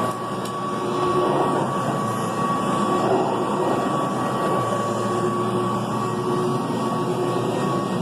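Kirby Classic III upright vacuum cleaner running steadily over carpet, its motor giving a constant whine.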